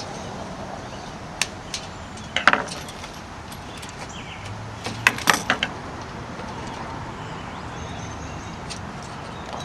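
Screwdriver tip clicking against the metal spline and aluminium screen frame as the spline end is pressed down into its channel: a few sharp clicks, then two short clusters of clicks, the second about five seconds in.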